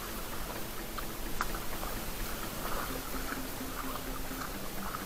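Seawater splashing and lapping against the side of a small wooden outrigger boat as a fish is handled at the waterline, with a sharp click about a second and a half in.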